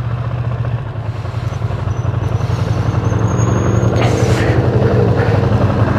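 Ducati Streetfighter V2 L-twin engine running at road speed, heard from inside the rider's helmet under a rush of noise, the whole growing gradually louder.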